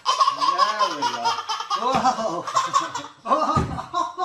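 A baby laughing hard in repeated bursts of belly laughter, the pitch swooping up and down, with short breaks for breath.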